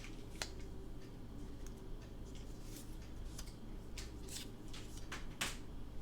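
Light handling of paper items: a string of short rustles and soft clicks, about eight in all, as cards and cardstock are picked up and moved.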